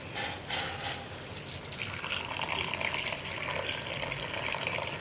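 Boiling water poured in a thin stream into a pot of chicken roast masala, a steady splashing trickle that begins about two seconds in.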